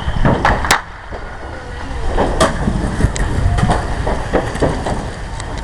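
Fireworks going off: a string of irregular bangs and crackling pops over a steady low rumble, with one loud bang just before a short lull about a second in.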